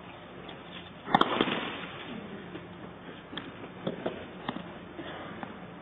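Tennis serve struck hard with a racket about a second in, followed at once by a short burst of crowd applause that dies away within a second. Scattered thuds and clicks on court follow, probably ball bounces and footsteps.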